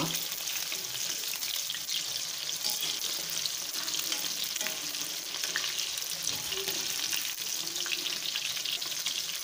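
Marinated anchovies (nethili) sizzling steadily in hot groundnut oil in a kadai, with crackles. A ladle stirs and turns the fish over now and then, now that one side is fried through.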